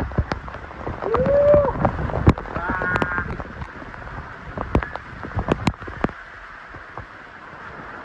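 Waterfall water pouring and splashing onto a man's head and shoulders: a steady rush of falling water with many sharp drop hits. He lets out a long yell about a second in and a shorter cry near three seconds.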